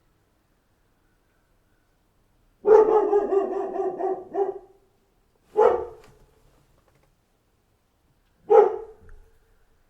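A dog barking: a quick run of barks lasting about two seconds starts a little over two seconds in, followed by two single barks about three seconds apart.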